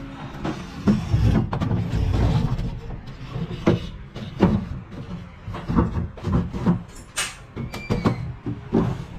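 Hinged panels of a folding wooden cage made of laminated marine plywood with palochina slats being folded and unfolded by hand: an irregular run of wooden knocks and clacks as the panels swing and meet.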